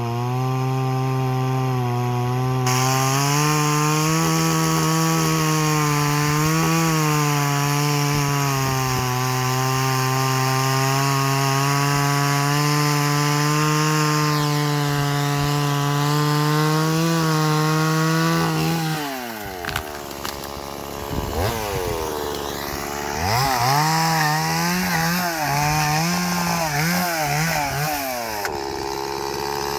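Stihl two-stroke chainsaw running at high revs and cutting into wood for about nineteen seconds. The throttle then drops and is blipped up and down a few times before the saw is held at high revs again near the end.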